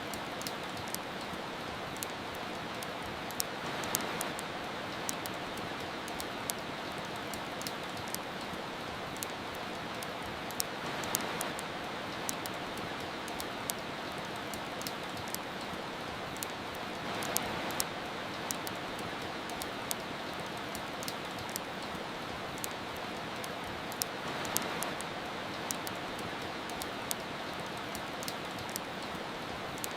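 Steady rain hissing evenly, with a wood fire crackling over it in frequent sharp pops. The rain swells a little about every six or seven seconds.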